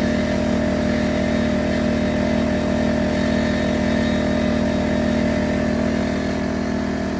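Bosch 6-gallon air compressor running steadily as it fills its tank, powered by a Firman 2000-watt portable generator that runs steadily under the compressor's load.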